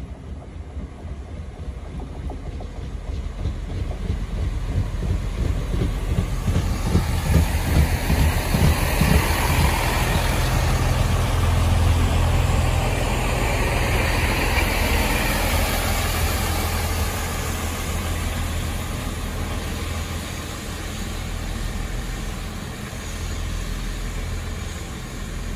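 GWR Class 165 diesel multiple unit arriving and slowing at the platform. Its diesel engines and wheels on the rails grow louder as it draws in, reaching a peak about halfway, then ease off as it comes to a stand.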